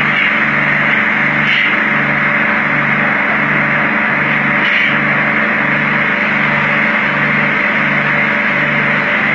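Automatic car wash spraying high-pressure water jets, a steady loud hiss, with a low machine hum pulsing on and off about one and a half times a second.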